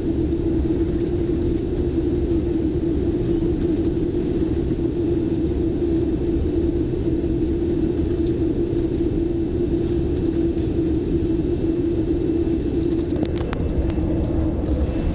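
Boeing 787-9 cabin noise on final approach: a steady rumble of engine and airflow with a constant hum. A few faint clicks come about 13 seconds in.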